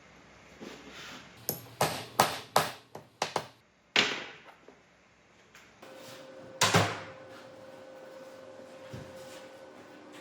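A quick run of sharp metal knocks and clanks, then two single louder knocks, as steel pieces are handled in the workshop; a steady machine hum comes on near the middle.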